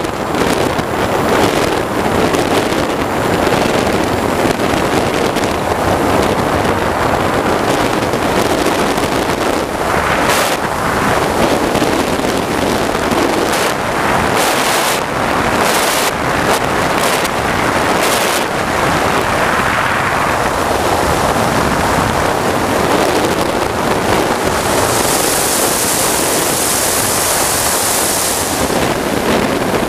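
Steady rushing noise of a turbine-powered RC sportjet in flight, mixed with wind buffeting the microphone. Several short gusts come in the middle, and a high hiss swells near the end.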